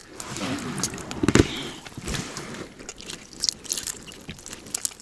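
Hands working a crucian carp out of a tangled nylon gill net: irregular wet crackling and clicking of mesh and fish, with small splashes, and one sharper click about one and a half seconds in.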